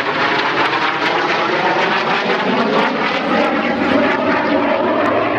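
An IAR 99 Soim jet trainer's Viper turbojet running as the jet flies its display overhead: a loud, steady rushing jet noise.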